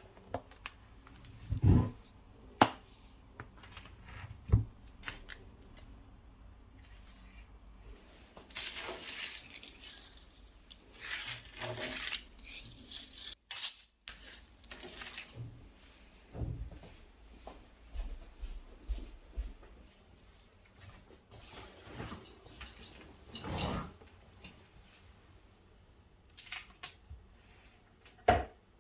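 Small handling sounds: scattered light knocks and clicks with several bursts of rustling.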